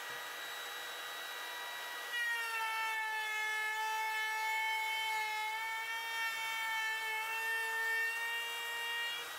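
Makita cordless trim router running with a steady high whine. About two seconds in, the bit starts cutting into the wooden insert: the sound gets louder and the pitch dips slightly and wavers under load as the router is moved through the cut. Near the end it comes free and the pitch returns to its free-running level.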